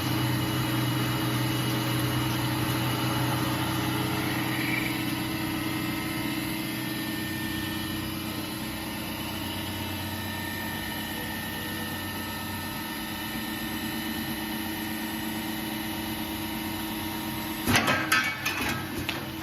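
CNC U-drill machine running steadily through its automatic drilling cycle, a mechanical hum with steady tones. Near the end a short burst of metallic clattering knocks.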